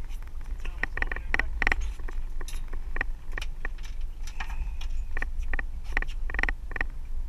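A fishing boat's motor and hull running under way with a steady low rumble, overlaid by many irregular sharp clicks and knocks.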